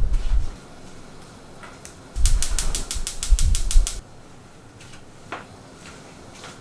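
Gas hob burner igniter clicking rapidly, about seven clicks a second for nearly two seconds, as the burner is lit to boil water. A dull thump comes at the very start.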